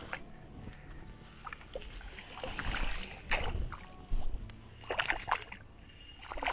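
Water splashing and sloshing in irregular bursts as a hooked tiger trout thrashes at the surface while it is reeled in and landed.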